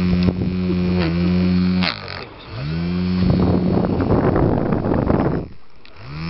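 Small two-AA battery-powered handheld fan with rubber blades, its little motor humming at a steady pitch. About two seconds in it is switched off with a click and the hum sinks away, then it is switched on and the hum rises back up, followed by a rush of air from the blades hitting the microphone. Shortly before the end it winds down again and starts back up.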